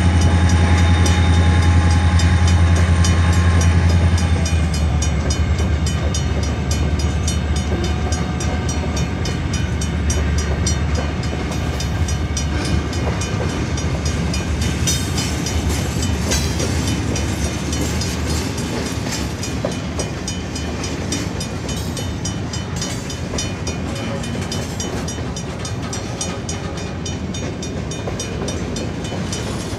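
Freight cars rolling past at a grade crossing: a steady rumble and rattle of steel wheels on the rails. A strong low hum and thin high whining tones die away about four seconds in, and the sound then eases off gradually as the train goes by.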